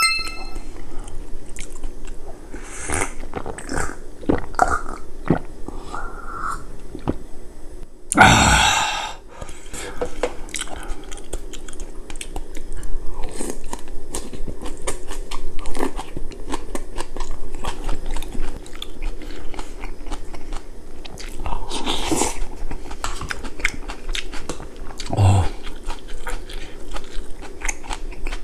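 Close-miked eating: biting, chewing and crunching of fresh kimchi and green onion, with spoonfuls of beef-head soup. A glass rings briefly at the start, and there is one loud, breathy rush of noise about eight seconds in.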